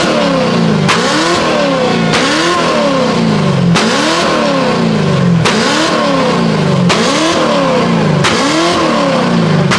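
A vehicle engine revved over and over, its pitch rising and falling about once every second and a half.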